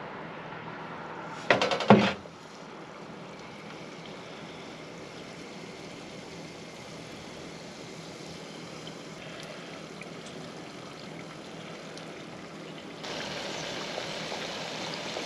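Beer-battered fish fillets frying in an electric deep fryer: hot oil bubbling and sizzling steadily. A short, loud burst of crackling comes about a second and a half in as a fillet goes into the oil, and the sizzle grows louder near the end.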